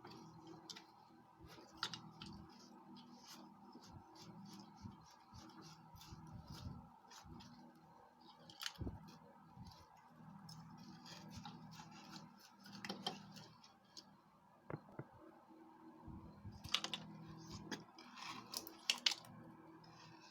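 Scattered clicks, small knocks and light rattles of hand tools and small parts being handled during pump repair work, louder clusters about 9, 13 and 17 to 19 seconds in, over a faint steady hum.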